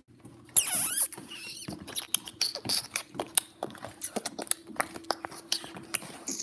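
A sharp, high squeak with a bending pitch about half a second in, followed by a quick run of clicks and rustles from a handheld phone being carried while walking, over a faint steady hum.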